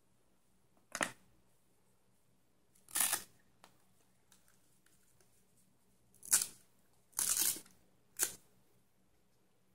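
Handling noises as a lithium-polymer battery pack is turned over and set into an electric longboard's plastic battery tray: five short scrapes and rustles a second or two apart, the longest about 7 seconds in, with the tray's velcro straps being handled.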